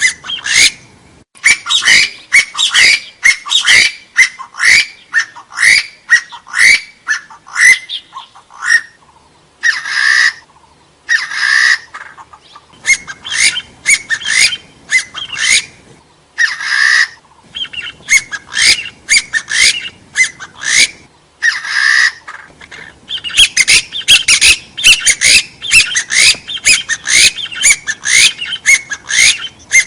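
Hill partridge calls: quick series of short rising whistled notes, two or three a second, broken by pauses and by several longer single calls.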